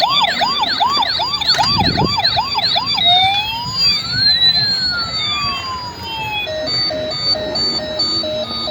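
Electronic toy siren sounds. For about three seconds a fast yelp sweeps up about three times a second. Then slow wailing sweeps glide up and down, crossing each other, and from about six and a half seconds in a quick stepped pulsing tone repeats about twice a second.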